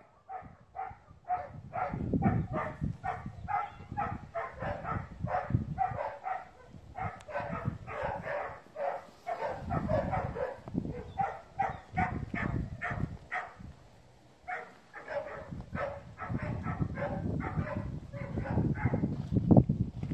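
A dog barking in quick, repeated yaps, about three a second, with a short pause partway through. Low rumbling noise runs underneath.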